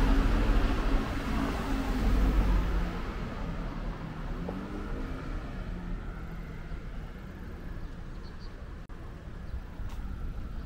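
A motor vehicle's engine passing close by, loudest at the start and fading away over the first few seconds. Quieter street traffic hum follows.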